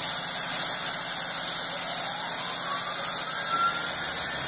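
CNC vertical milling machine running with a steady hiss and hum, and a rising whine a little past the middle.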